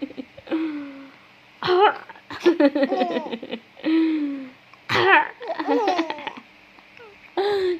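A baby laughing in repeated bursts, set off by a woman's short playful coughs; each cough is followed by a run of giggles and belly laughs.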